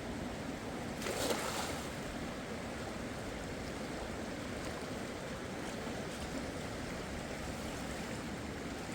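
Steady rush of river water running fast, with a brief louder swell about a second in.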